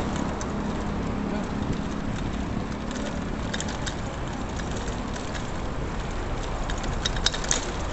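Steady rushing, crackly noise of a moving bicycle: wind on the microphone and tyres on the road surface. A few light clicks and rattles come about three and a half seconds in and again near the end.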